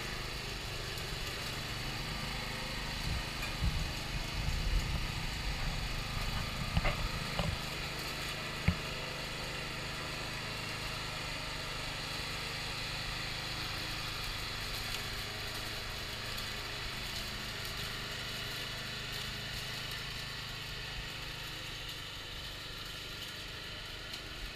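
Petrol lawn mower engine running steadily while the radio-controlled mower drives across the lawn, with a few knocks and bumps in the first several seconds and one sharp click about nine seconds in. It fades slightly near the end as the mower moves away.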